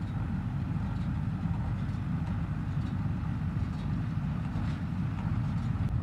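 Sonalika 750 tractor's diesel engine running steadily, driving a Shaktiman square baler that is picking up and baling paddy straw, the baler's machinery running together with the engine.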